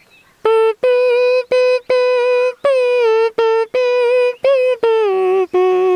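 A man imitating a guitar with his nose, playing a devotional bhajan-kirtan melody: about a dozen twangy nasal notes, each starting with a sharp pluck-like click and held briefly, mostly on one pitch with a few short downward slides.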